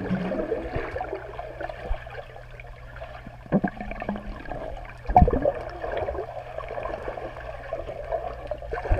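Swimming-pool water heard through a camera held underwater: steady sloshing and bubbling with a low hum, and a few dull knocks, the loudest about five seconds in.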